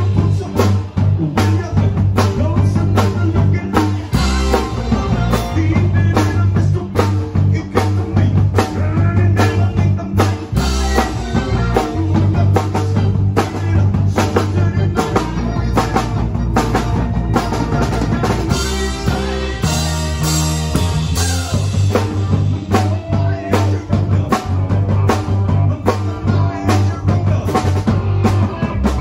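Live rock band playing: a drum kit with steady kick and snare, electric guitar, and a sustained electric bass line.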